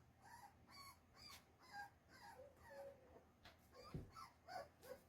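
Newborn puppy whimpering in a run of short, faint, high squeaks, about two a second, with a soft low bump about four seconds in.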